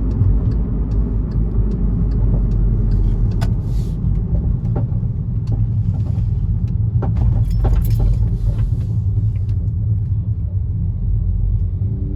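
Cabin of a 2016 Volkswagen Jetta 1.4T on the move: steady low road and driveline rumble, with a series of sharp knocks and clunks from the rear as the car goes over bumps, thickest from about seven to nine seconds in. The knocking is the unexplained noise from the trunk area, near the fuel tank and charcoal canister, in a car with the rear seat removed.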